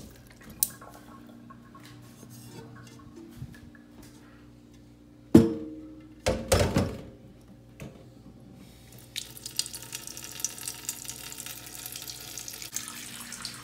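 A metal pot knocking against a stainless steel sink, two loud clanks about five and a half and six and a half seconds in. From about nine seconds on, water runs from a faucet-mounted filter into the pot, filling it.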